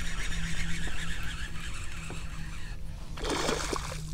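A hooked speckled trout splashing and thrashing at the water's surface about three seconds in, over a steady low hum.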